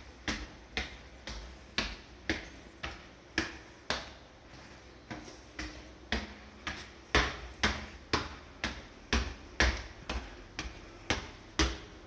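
Footsteps climbing a staircase: shoes striking the treads in an even rhythm of about two steps a second, louder in the second half.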